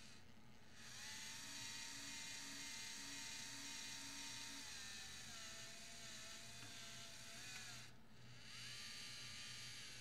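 LEGO Mindstorms NXT servo motors whirring as they drive a robotic arm and claw, a thin geared whine that steps and glides in pitch as the arm moves. The motors start about a second in, stop briefly near the eight-second mark, then run again.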